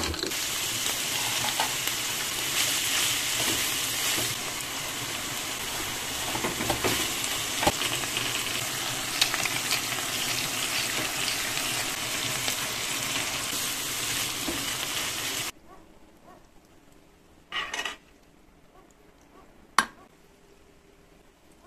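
Ground beef with diced tomato frying in a pan, a steady loud sizzle with stirring scrapes and clicks. It cuts off suddenly about three-quarters of the way through. A short rustle and a single sharp click follow near the end.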